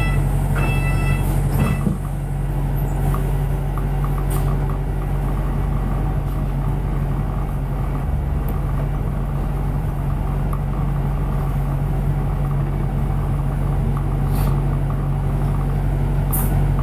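Steady low engine drone and road rumble of a double-decker bus on the move, heard from on board. A repeating beep sounds at the start and stops about two seconds in.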